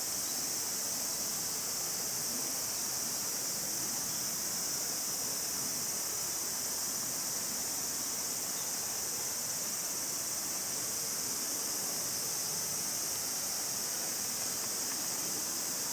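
Steady, unbroken high-pitched insect chorus.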